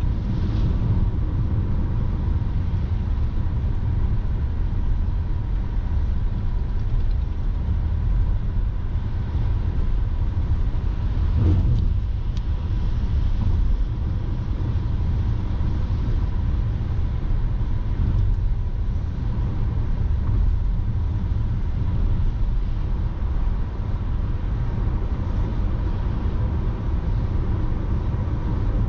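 A car driving on the road: steady low rumble of tyres and engine, with one brief louder bump about halfway through.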